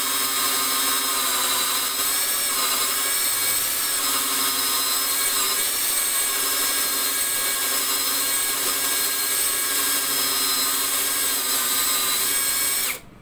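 Cordless drill running steadily as it bores a hole into a wooden panel, a steady motor whine over the hiss of the bit cutting wood; it stops near the end.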